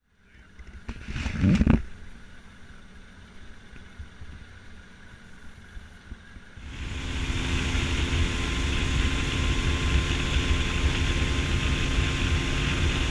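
A brief knock about a second in, then a faint steady low hum. About halfway through, a motorboat engine comes up loud and runs steadily under the rush of wind and spray as the boat gets underway.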